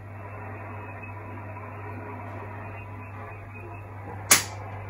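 HF amateur radio receiver tuned to the 80 m band, giving steady band hiss through its speaker over a low hum, with a sharp click near the end.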